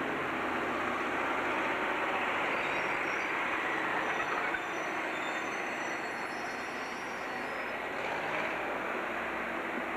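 Electric train running on the track, a steady running noise with faint high-pitched wheel squeal through the middle.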